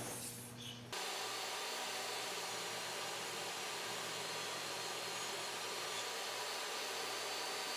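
Table saw running steadily while ripping a block of white carving wood lengthwise. The sound starts abruptly about a second in.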